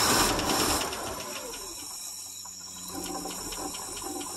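1963 International C120's 266 V8 sputtering on gasoline poured straight into its carburetor. A loud, rough rush falls away within the first second, leaving quieter, uneven running with a light regular ticking. The engine runs only while it is fed fuel by hand.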